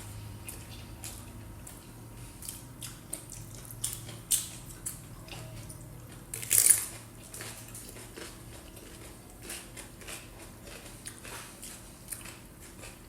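Eating and table sounds: scattered small clicks and taps of dishes and utensils, with one louder crisp crunch or rustle about six and a half seconds in, over a low steady hum.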